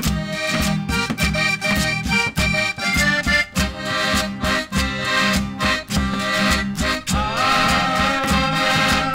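Traditional music with a melody over a steady, regular beat. About seven seconds in, a new wavering melody line comes in.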